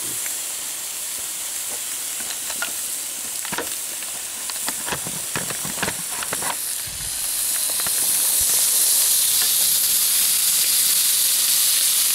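Tri-tip steaks sizzling on a portable gas grill's ribbed grill pan: a steady frying hiss that grows louder about seven seconds in, with a few light clicks and knocks in the first half.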